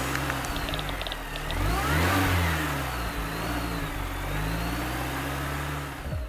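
Car engine revving, its pitch rising and falling several times, loudest about two seconds in. It is a sound effect for a logo animation.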